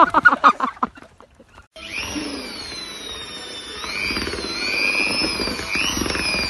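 A loud, broken burst of a person's voice for about the first second. Then an electric drill fitted with a mixing paddle starts running in a pot of thick mixture, its motor whine wavering up and down in pitch as it speeds and slows.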